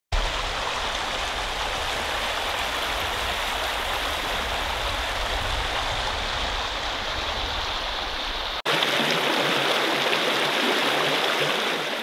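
Shallow creek running over rocks: a steady rushing of water. About eight and a half seconds in, the sound cuts to a closer, louder riffle.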